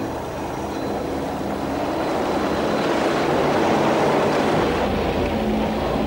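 Speedboat running on a river: engine and rushing water spray swelling to loudest about four seconds in, then easing off.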